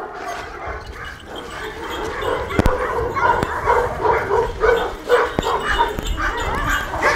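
Large Anatolian shepherd dogs in wire kennel runs barking in a run of short calls, two or three a second, from about three seconds in, with a few sharp knocks among them.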